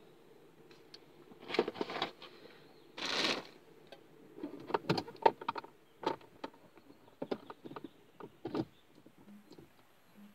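Things being handled inside a car: scattered clicks and light knocks with short rustles, and a louder rustle about three seconds in.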